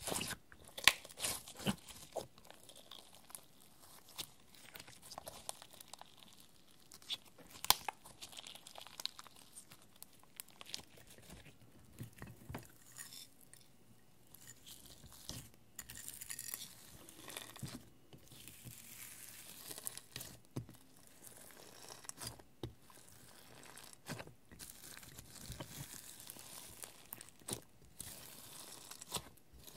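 Glitter-loaded slime being squeezed, kneaded and pressed by hand in a glass dish, giving irregular crackles and sharp clicks as it is worked into glitter, foil flakes and small plastic charms. The loudest clicks come about a second in and again near eight seconds.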